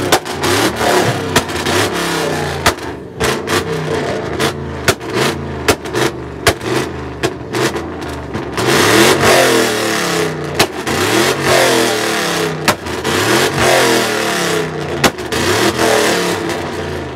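Ford Mustang GT's V8 revved over and over, the pitch climbing and dropping about once a second, with sharp exhaust pops and cracks between the revs. The revving gets louder about halfway through.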